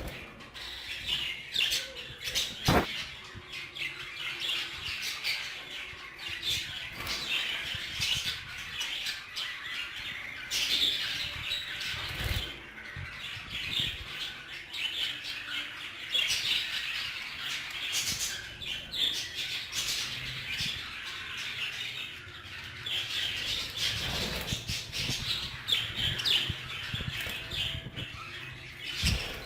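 A flock of frilled (Hagoromo) budgerigars chattering and warbling without a break, with wing flaps and a few sharp knocks.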